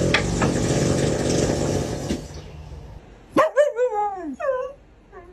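A steady mechanical hum that cuts off about two seconds in, followed by a husky vocalizing. The husky gives a run of four or five short yowling calls, each rising and falling in pitch, then one falling whine near the end.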